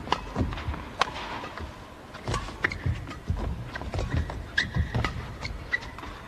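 Badminton rally: a string of sharp racket strikes on the shuttlecock, with players' footsteps thudding on the court and a few short shoe squeaks.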